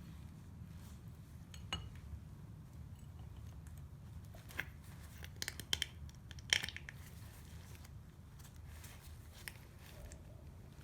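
Scattered short clicks and handling noises from the greasy inner CV joint parts being fitted back together, over a faint steady low hum. The loudest cluster of clicks comes around the middle.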